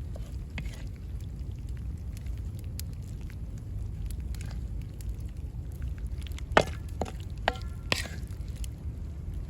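Steady low wind rumble with scattered light clicks, then a few sharp metallic clinks with a brief ring, about six and a half to eight seconds in.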